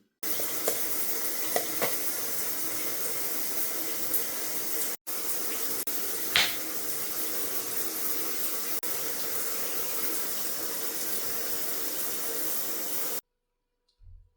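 Steady rush of running water, with a brief gap about five seconds in and a single light knock soon after, cutting off sharply near the end.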